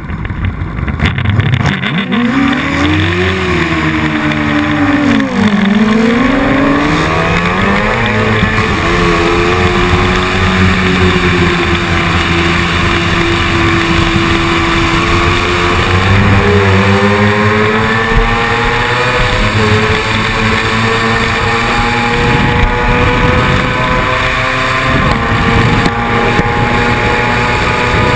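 Racing sidecar outfit's engine at full throttle, heard onboard: its pitch climbs steadily and drops sharply at each upshift, several times over.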